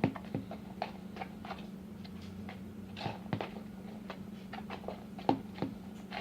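Sticky homemade glue slime being squeezed and pulled by hand: irregular little sticky clicks and pops, over a steady low hum.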